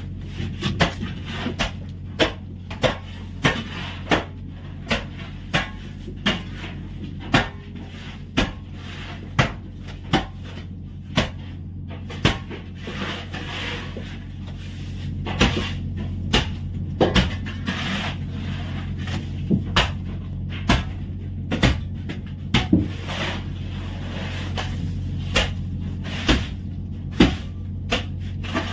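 Sharp knocks and slaps, about one a second at first and then less regularly, as ribbonfish are lifted from a plastic crate and laid in rows on crushed ice against a wooden board. A steady low machine drone sits underneath.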